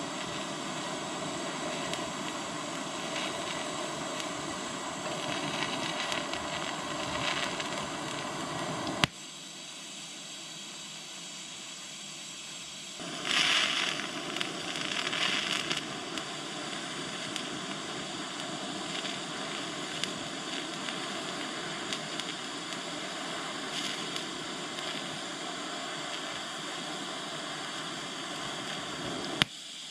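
TIG welding arc on 1/8" mild steel at 80 A, hissing and buzzing steadily as a bead is laid. A sharp click about 9 seconds in is followed by a quieter stretch, then a louder crackling spell for a few seconds, with another click near the end.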